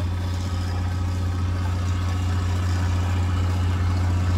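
An engine running steadily at a constant speed: a low, even hum that does not change in pitch.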